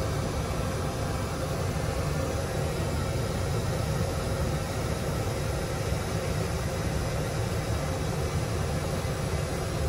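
Steady rumble and hiss of an airliner in flight, heard inside the aircraft lavatory: constant engine and airflow noise, heaviest in the low end.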